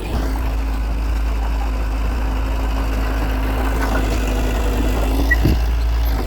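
Heavy diesel engine of earthmoving machinery running steadily as a low drone, with a brief sharper sound about five and a half seconds in.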